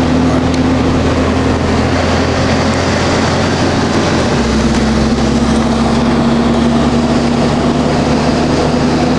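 Steady road, wind and engine noise heard inside the cab of a vehicle driving at highway speed, with a low steady drone. The drone's lowest pitch shifts slightly about four seconds in.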